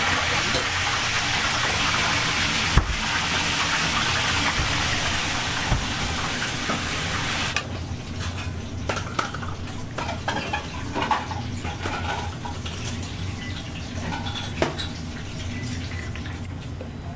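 A steady rush of running water cuts off suddenly about seven and a half seconds in. Two sharp knocks come in the first half, and after the water stops there are softer clinks of a metal ladle in a metal hot pot.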